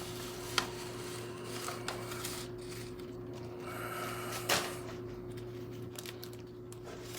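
A few light clicks and knocks from handling the plant's packaging while it is unwrapped, the loudest about four and a half seconds in, over a steady low electrical hum.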